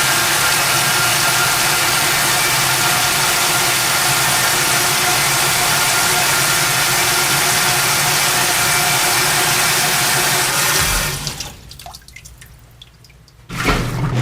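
Old-fashioned washing machine running: a steady rushing noise over a motor hum. About eleven seconds in it drops away sharply and goes much quieter for about two seconds, then a loud, steady low hum starts near the end.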